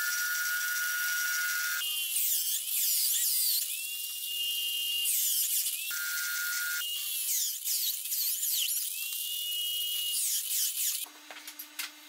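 Electric drill in a drill-press stand boring two holes through a wood board with a round hole-cutting bit: the motor whines freely, then bites into the wood with a busier, squealing cutting sound, spins free again briefly about 6 seconds in, and cuts the second hole before stopping about 11 seconds in.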